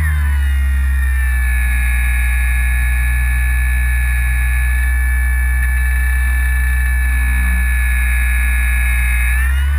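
Onboard sound of a ParkZone Radian Pro motor glider's electric motor and propeller: a steady whine over a low drone. The pitch drops as the throttle comes back just after the start and climbs again near the end.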